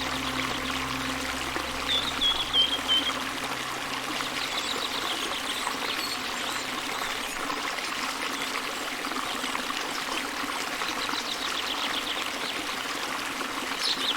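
Water trickling and flowing steadily, like a small stream, with short high chirps about two seconds in and again near the end. A faint low held tone fades out in the first few seconds.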